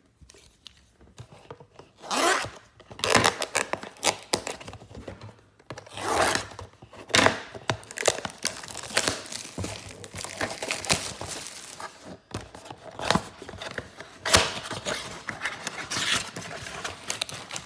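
Cardboard trading-card blaster box being torn open by hand: irregular tearing, scraping and rustling, with a few sharp snaps.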